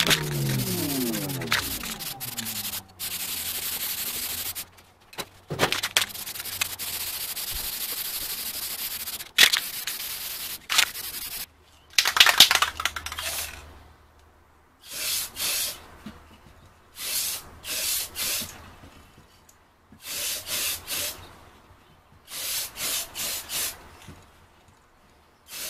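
Aerosol spray paint can spraying: long hissing bursts of several seconds each in the first half, then short repeated bursts in quick groups later on, with a few clicks between sprays.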